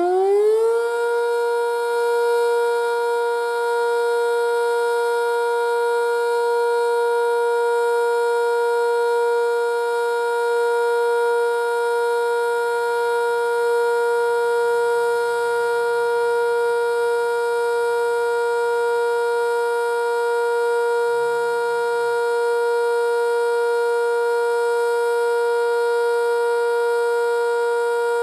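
Sentry 5V outdoor warning siren finishing its wind-up and holding one loud steady tone at full speed, the steady Alert signal of a monthly siren test. The pitch stops rising within the first second, then holds level.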